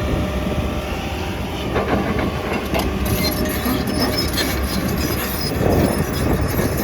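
Excavator's diesel engine running steadily under load, with rattling and a few metal knocks from the machine as it works.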